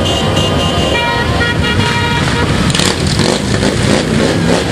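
A group of cruiser motorcycles riding slowly past, their engines running together in a steady low drone. A horn sounds over them for about the first two seconds.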